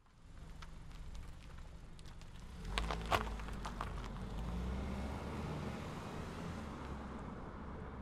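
Car driving: a steady low engine rumble with road noise, fading in at the start and growing louder about three seconds in. A few sharp clicks or knocks come around the three-second mark.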